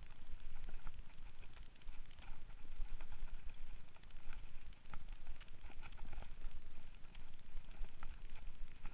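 Mountain bike ridden fast over a dirt trail: a constant low rumble from tyres and bumps, with irregular sharp clicks and rattles from the bike and loose gravel.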